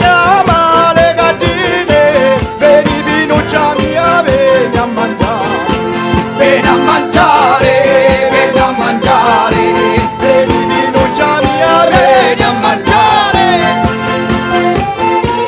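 Live southern Italian folk music: tambourine frame drums and a mallet-struck drum keep a fast, steady beat under a wavering melody line and held tones.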